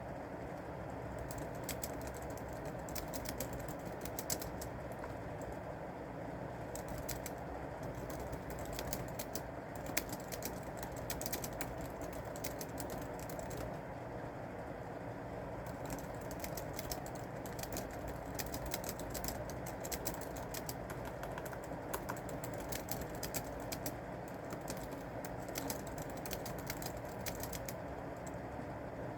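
Typing on a keyboard: runs of quick key clicks with two short pauses, over a steady low hum.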